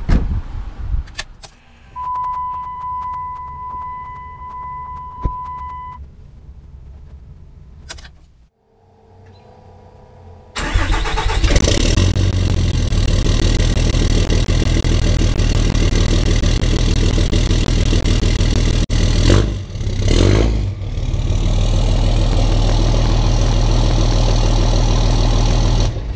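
Dodge Ram's Cummins 24-valve turbo diesel starting about ten seconds in, then running loud and steady at the tailpipe, revved briefly about twenty seconds in. Before it, a steady electronic tone sounds for about four seconds.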